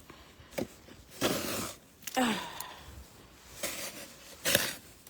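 A woman breathing hard, with a falling sigh about two seconds in, among a few short scuffing sounds; the loudest is a sharp knock or crunch near the end.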